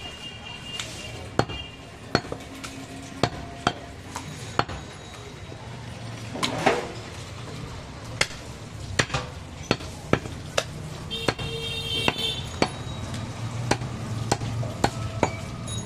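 A heavy butcher's chopping knife striking goat meat and bone on a wooden log chopping block: about twenty sharp knocks at irregular intervals.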